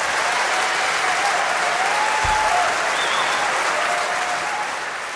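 Large audience applauding steadily, with a few faint voices calling out over the clapping; it fades out near the end.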